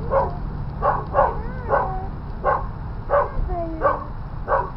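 A dog barking in short, sharp yaps, about eight at uneven intervals, with whines that slide down in pitch between the barks.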